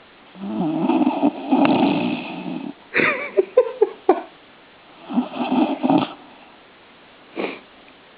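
Griffon dog snoring while awake during a belly rub: a long rasping snore about half a second in, a run of short snorts and snuffles around three to four seconds, another snore around five to six seconds, and a brief snort near the end.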